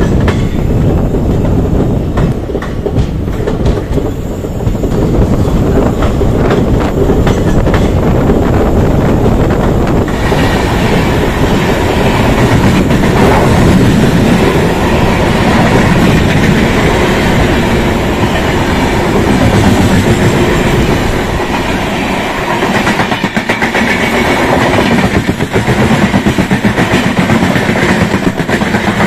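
Indian Railways train running on the track: a loud, continuous rumble of wheels on rail that turns brighter about a third of the way in, with a fast regular pulsing near the end.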